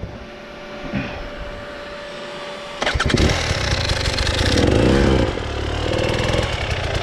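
Off-road motorcycle engine running quietly, then picking up sharply about three seconds in and running louder, with a fast even firing beat.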